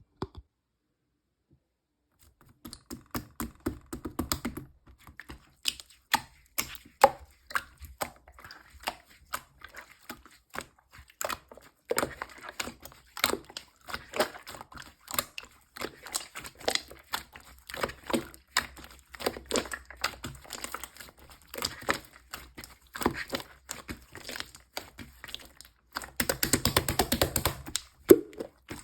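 Clear slime being pressed and worked by hand, giving irregular sticky clicks and pops, several a second, with a denser crackling stretch near the end.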